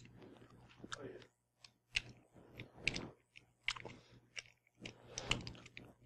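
Faint, scattered clicks and light scrapes of small parts being handled as a disassembled Bluetooth padlock is fitted back together by hand.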